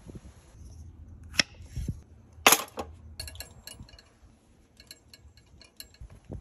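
Metal clinks and clacks from a hot sandwich maker on a camp gas stove being handled: a few sharp clicks, one loud clank about two and a half seconds in, then a run of light ringing ticks.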